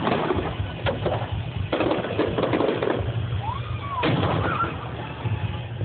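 Fireworks going off: four sharp bangs with crackling noise between them, and a few short high glides in the second half.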